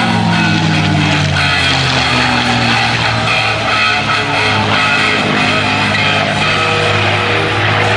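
Rock music with guitar playing steadily.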